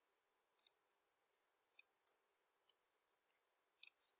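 Computer mouse clicking: about ten short, sharp clicks scattered irregularly.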